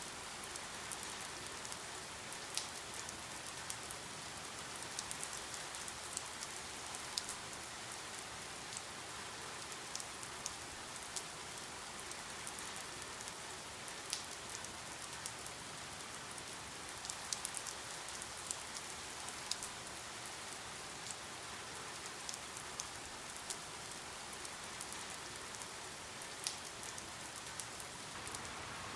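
Steady rain falling, an even hiss with many sharp individual drops striking a surface scattered through it.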